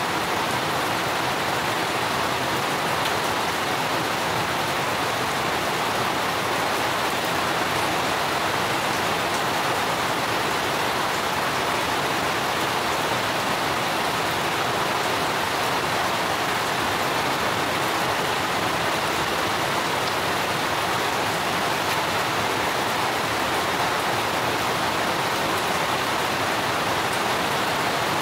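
Steady rainfall: an even hiss of falling water with no single drops or other events standing out.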